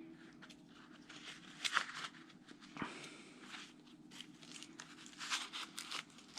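Faint handling noise of a Leatherman OHT multi-tool being fitted into its case: scattered light clicks and rustles, a few a little louder around the second and near the end.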